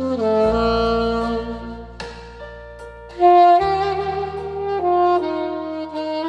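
Saxophone playing a slow melody of held notes over sustained low accompaniment. The sax jumps to a louder, higher phrase about three seconds in.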